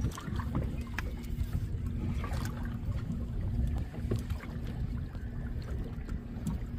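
Steady low rumble and hum of a fishing boat's outboard motor running slowly, with wind on the microphone and a few light knocks and clicks.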